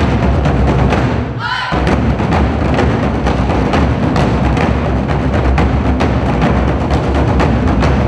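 Ensemble of Korean barrel drums beaten in a fast, dense rhythm, with a short break about a second and a half in that is filled by a brief falling swoosh.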